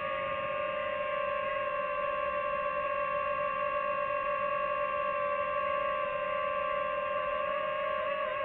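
DJI FPV drone's motors and propellers giving a steady high whine in flight, the pitch wavering slightly near the end.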